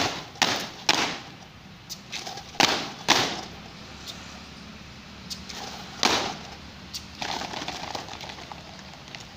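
Soldiers of a quarter guard making sharp, crisp drill strikes in unison: three about half a second apart at the start, two more about two and a half seconds in, and one loud strike about six seconds in, with a faint rustle near the end.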